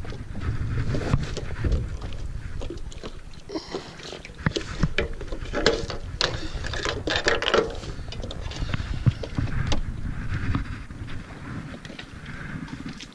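Wind buffeting the microphone in a steady low rumble, with a scattering of footsteps, knocks and clunks as someone walks on a dock and climbs aboard a small fishing boat.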